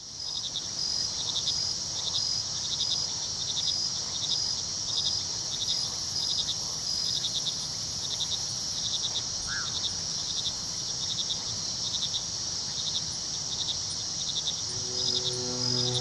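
Night-time chorus of crickets chirping: a steady high-pitched trill with a regular pulsed chirp about every three-quarters of a second. Soft music comes in near the end.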